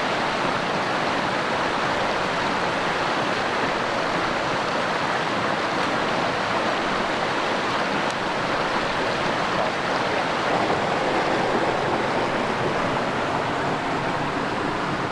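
Rushing mountain creek tumbling over boulders and small cascades: a steady, loud water rush with no let-up.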